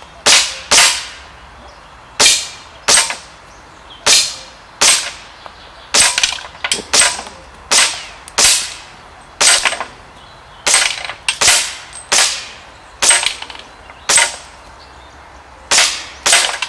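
Rifle fired in quick succession at small knock-down targets during a timed run: some two dozen sharp shots, irregularly spaced from a third of a second to over a second apart, with a longer pause before the last two.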